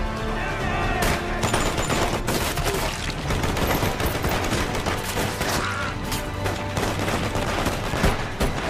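Massed rifle fire in a film battle scene: many rifles firing at once in a dense, rapid fusillade of overlapping shots that starts about a second in and keeps going.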